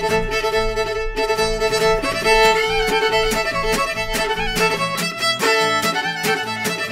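Fiddle playing a fiddle-medley tune in the key of A, backed by acoustic guitar strumming a steady rhythm.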